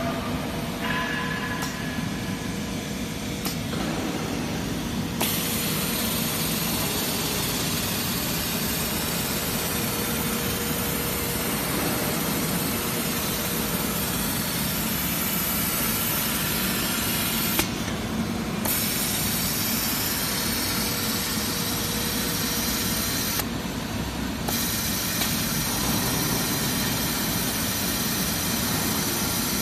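QBBBJ-2000 mattress edge-trimming overlock sewing machine running steadily, stitching and trimming the edge of a quilted mattress panel.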